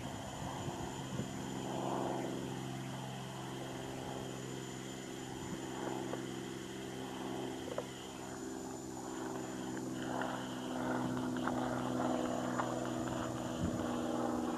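Neiva EMB-710D single-engine propeller plane flying over, a steady engine-and-propeller drone that grows a little louder in the second half.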